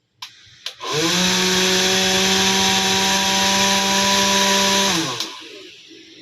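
Small DC motor of a homemade table fan: two clicks of the switch, then the motor spins up within a fraction of a second to a steady whine with a hiss, runs about four seconds, and is switched off, winding down and fading.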